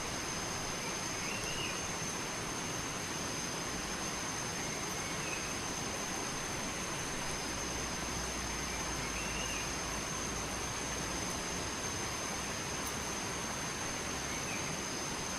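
Steady rush of flowing water, an even unbroken hiss with a few faint high chirps over it.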